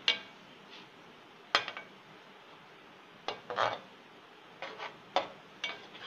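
Metal slotted spoon scraping and clanking against an aluminium karahi as chicken pieces, tomatoes and fried onions are stirred. About seven separate strokes come irregularly, a second or so apart.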